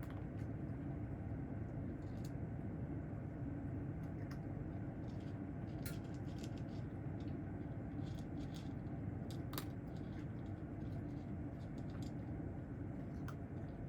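Steady low hum of a running household appliance, with scattered faint small clicks and taps.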